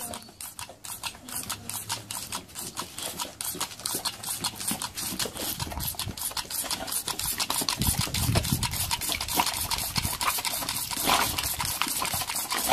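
Boxer dog snapping and lapping at a jet of water, a quick run of wet clicks several times a second.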